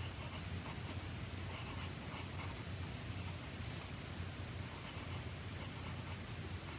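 HB graphite pencil sketching on paper: light, irregular scratching strokes coming in small flurries, over a faint steady low hum.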